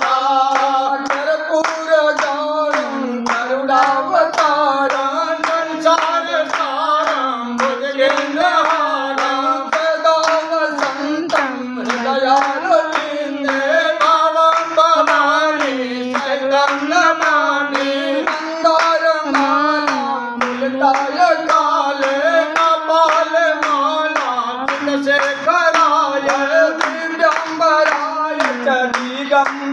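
A devotional aarti hymn sung continuously, with steady hand-clapping in time, about two claps a second.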